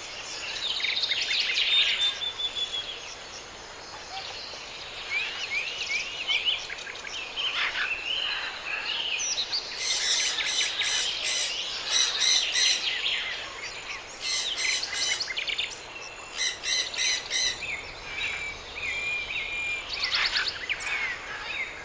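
Several birds calling and singing together: short whistled chirps and sweeping notes, with bursts of rapid trills through the middle, over a steady background hiss.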